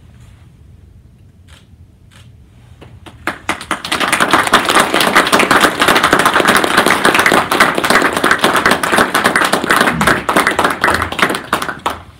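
Audience applauding: a few scattered claps build into full, steady applause after about three seconds, which stops abruptly near the end.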